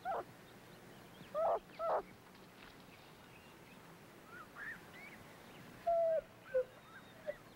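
Puppies yelping and whining: short, high, falling yelps, three in the first two seconds, then fainter higher whines, and a few more yelps near the end.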